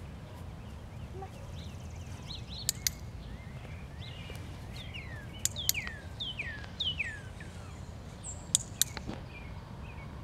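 A dog-training clicker pressed three times, each press a sharp double click, while a bird repeats falling whistled notes over a steady low outdoor background noise.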